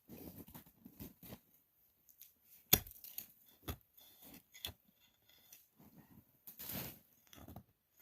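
Pulaski axe-mattock chopping into hard-packed ice: a few sharp strikes, the loudest about three seconds in, with crunching and scraping of ice between them and a longer crunch near the end.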